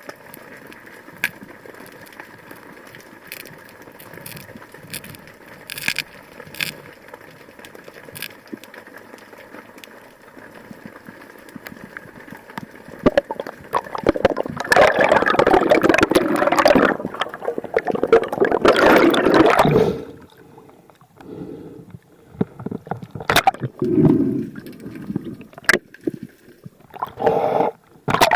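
Water sound as heard by an underwater camera: a faint steady hiss with scattered sharp clicks, then about thirteen seconds in a loud rush of bubbling, gurgling water lasting some seven seconds, followed by several short gurgles and splashes.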